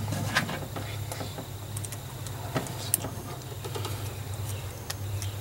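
Scattered light clicks and taps of hand work on wiring and small parts in an engine bay, over a steady low hum.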